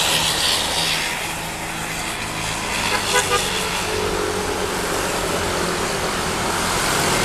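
Road traffic: a vehicle engine running steadily, with short horn toots about three seconds in.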